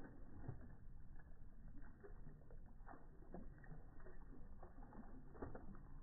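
Dogs splashing in shallow river water: an English bulldog biting and mouthing at the surface while paws slosh, heard as faint, scattered splashes and small knocks.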